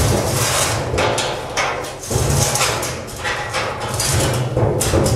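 Steel ring of a Puxin biogas digester mold being dragged across a concrete floor: a loud, continuous scraping rumble with knocks from the metal panels, easing briefly about two seconds in.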